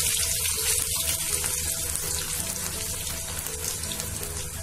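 A large flat minced-mutton kabab sizzling in hot oil in a steel pan, just after being laid in: a steady hiss that fades slightly over a few seconds.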